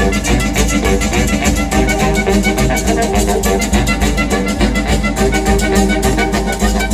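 A live band with saxophones and drums playing an up-tempo tune: sustained wind melody over a fast, steady drum beat.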